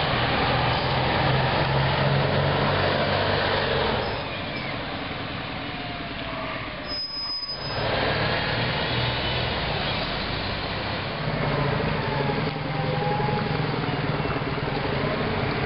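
Articulated MAN city bus driving past, its engine running with road and tyre noise and other traffic around it. The sound drops briefly about seven seconds in and then picks up again as the bus pulls away.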